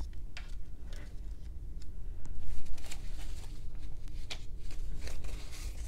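Paper banknotes being counted by hand: bills flicked and shifted one after another from hand to hand, a run of short, crisp paper rustles and snaps.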